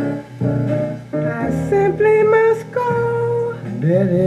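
Music from a vocal duet record played through a 1956 RCA 7-HF-45 Orthophonic 45 rpm record player, its four-tube amplifier driving separate woofer and tweeter speakers. The passage is instrumental between sung lines, and a singing voice comes back in near the end.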